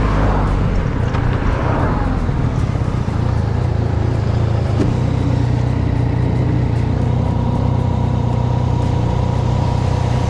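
Motorcycle engine heard from the rider's camera: its note drops in the first couple of seconds as the bike slows, then it runs at a steady idle.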